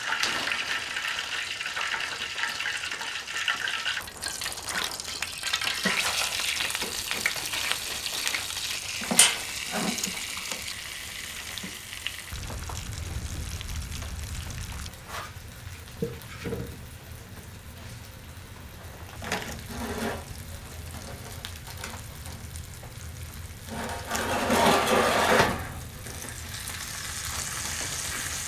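Food sizzling in a frying pan: a steady hiss with scattered clicks and knocks, the sharpest about nine seconds in, and a louder stretch of sizzling about twenty-four seconds in.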